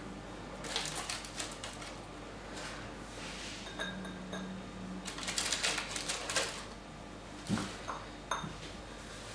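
A spoon scraping and clicking against plastic tubs of frozen ice cream and a glass serving bowl, in several short bursts, with two single knocks near the end.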